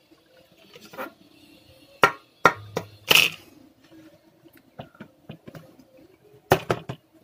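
Irregular sharp clicks and knocks of small hand tools being handled and set down on a workbench during circuit-board repair. The loudest are a few knocks about two to three seconds in, including a short scrape, and a double knock near the end.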